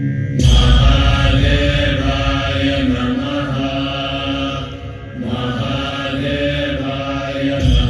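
Voices chanting a mantra over music, in long held phrases with a short break about five seconds in, with a deep low swell at the start and again near the end.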